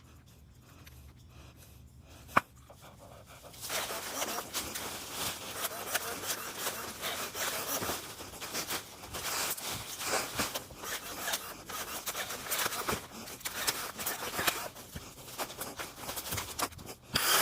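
A single sharp click, then from about four seconds in a long stretch of rubbing and scraping with many small clicks, as a trailer load of cut branches is shifted and tied down.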